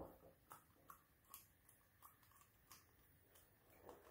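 Near silence with a string of faint, light clicks and taps from the plastic housing of a NEMA 14-50P plug being handled and turned.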